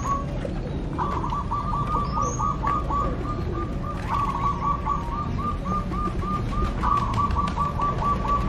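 Caged zebra doves (perkutut) cooing: runs of quick repeated notes, about five a second, several runs one after another. A brief high rising chirp from another bird comes about two seconds in.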